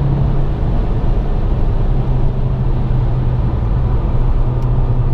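A 2007 Volkswagen Golf MK5 GTI's turbocharged 2.0-litre four-cylinder engine cruising, heard from inside the cabin as a steady low drone over tyre and road rumble.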